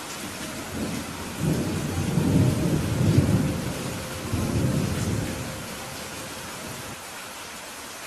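Steady rain with a long roll of thunder that builds about a second in, swells twice and dies away by about six seconds.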